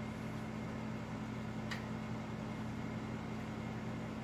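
Steady low hum of an electric fan running, with one faint light click a little under halfway through as a metal spoon stirring molten lead in a small solder pot touches the pot.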